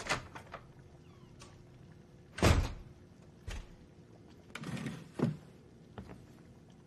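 Household knocks and thuds: a door shutting hard about two and a half seconds in, then a short scrape ending in a thud as a chair is pushed back from a table and someone stands up.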